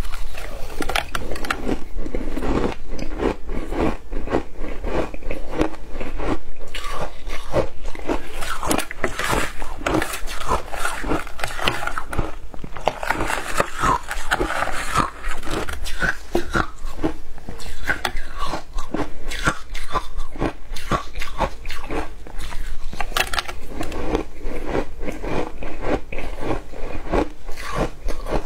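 Shaved ice being bitten and chewed, a rapid run of crisp crunches, many a second.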